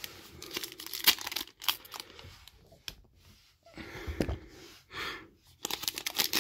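A trading-card pack's wrapper being torn open and crinkled by hand: a sharp rip about a second in, then crackling on and off that grows busier near the end.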